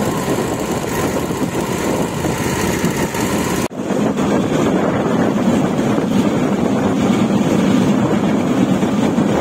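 Railway motor trolley running along the track: a steady run of engine and wheel noise with wind on the microphone. The sound changes abruptly about four seconds in, with less hiss and a stronger low hum after.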